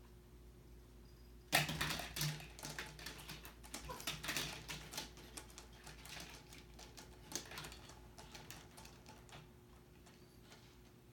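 Vertical window-blind slats clattering and rattling as a cat pushes about behind them. The clatter starts suddenly about a second and a half in, runs as a busy string of clicks, and tapers off near the end.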